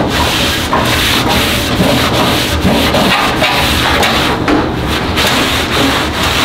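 Paper towel wiping back and forth across the bare steel top of a Blackstone griddle, a steady scrubbing rub with brief dips at the changes of stroke, as oil is worked over the surface until the towel comes up clean.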